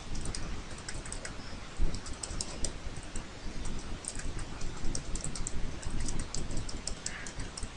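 Computer keyboard keys pressed in an irregular run of light clicks.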